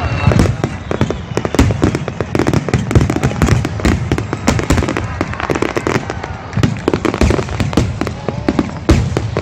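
Aerial fireworks bursting in a rapid barrage: many sharp bangs and crackles follow close on one another.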